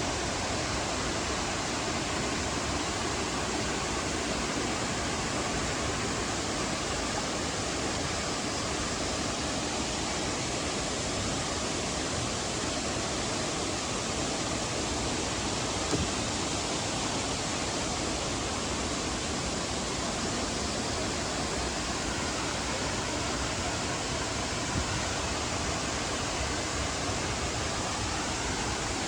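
Waterfall's falling water rushing steadily: a dense, even wash of noise with no break.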